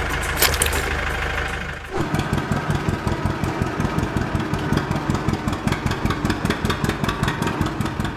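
Tractor engine sound effect dubbed over toy vehicles. It runs as a steady hum for about two seconds, then switches to a rapid, even chugging for the rest.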